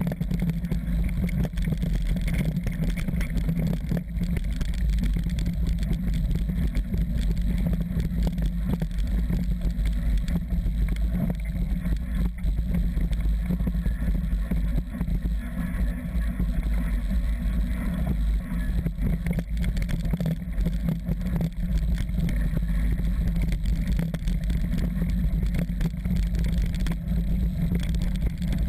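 Steady wind rumble on a bike-mounted action camera's microphone during a mountain-bike descent of a dry dirt trail, with the tyres running over the dirt and frequent small knocks from the bumps.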